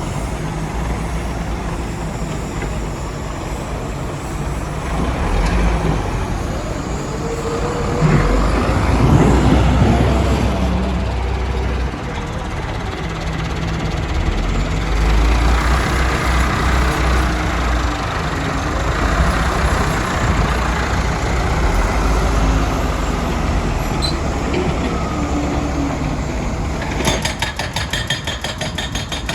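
Heavy diesel earthmoving machinery working: a deep engine rumble that swells under load twice, at about eight and fifteen seconds in. Near the end a fast, even clatter of clicks sets in.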